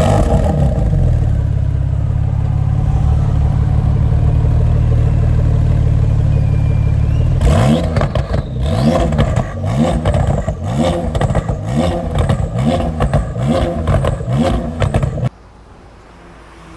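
A Porsche engine running steadily and loudly, then revved in a series of about ten quick throttle blips, each a short rise and fall in pitch. It cuts off suddenly near the end.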